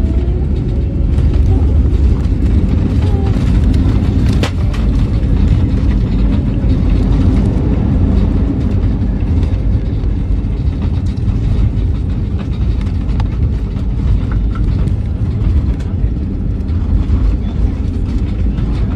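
Steady low rumble and rush of an airliner cabin in flight, with one sharp click about four and a half seconds in.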